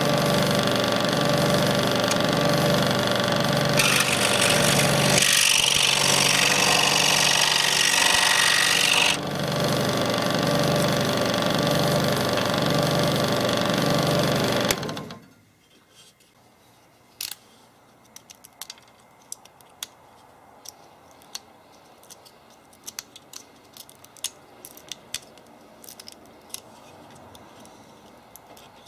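Scroll saw running, its fine blade cutting through a walnut shell, with a louder, hissier stretch for several seconds while it bites into the shell. The saw switches off about halfway through, leaving light, scattered clicks and scrapes of a small hand tool picking nutmeat out of the cut shell.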